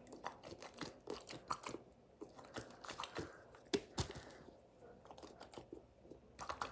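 Plastic packaging being handled: scattered crinkles and small clicks, with a couple of sharper snaps near the middle.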